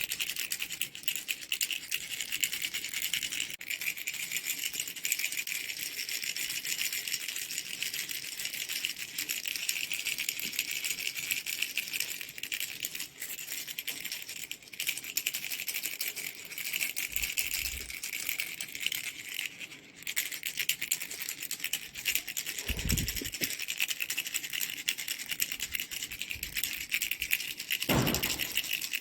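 Mango-shaped baby rattle shaken continuously, a dense, fast rattling. Two dull low thumps come near the end.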